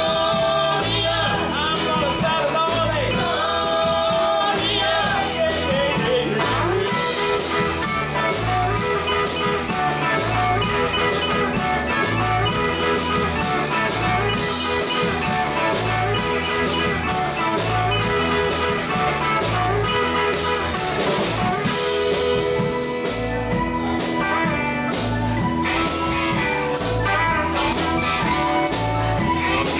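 A live rock band playing: electric guitar, bass guitar, drums and a Korg Karma keyboard over a steady beat. A woman sings lead over it for the first several seconds, after which the band plays on without vocals.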